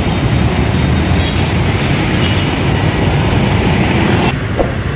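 Busy city street traffic, mostly motorbikes with a box truck among them, running past close by as a steady rumble. A few short high squeals sound over it, and the level drops about four seconds in.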